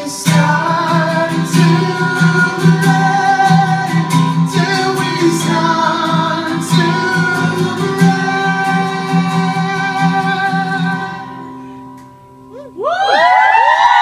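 A man singing live with a strummed acoustic guitar; the last chord fades out about eleven to twelve seconds in. Then the audience breaks into loud cheering, screams and applause near the end.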